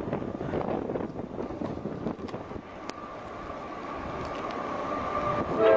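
Passing train rumbling and clicking, with wind buffeting the microphone; the noise grows louder and a faint steady whine joins about halfway. A locomotive's multi-note air horn starts sounding right at the end.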